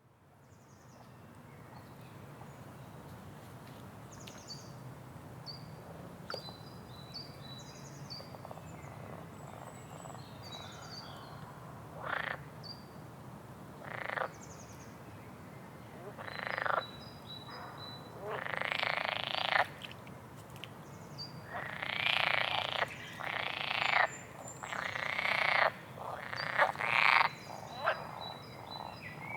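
Frogs croaking: single loud croaks come about twelve seconds in, then grow more frequent and longer toward the end. Small birds chirp faintly in the first half, over a steady low background hum.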